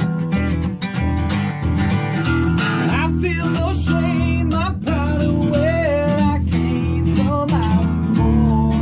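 Background music: strummed acoustic guitar over a steady bass line, with a wavering lead melody coming in about three seconds in.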